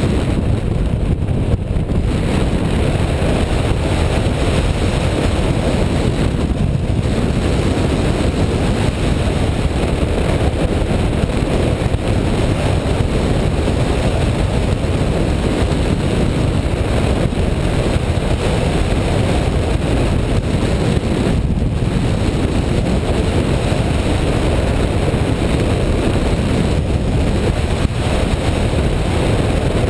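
Loud, steady rush of airflow buffeting the microphone of a camera mounted on a hang glider's wing in flight.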